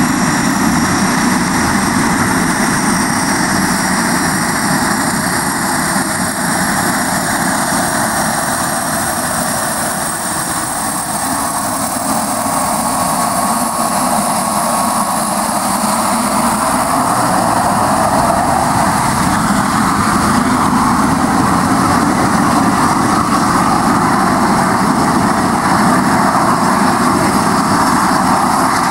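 Twin turboprop engines of a Let L-410 taxiing at close range: a steady, loud propeller and turbine noise. It grows louder and brighter over the second half as the aircraft comes nearer.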